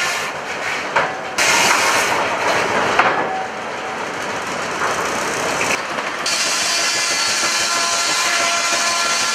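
Heavy wood-processing machinery running, a loud steady mechanical noise with a few steady tones, changing sharply about a second and a half in and again about six seconds in.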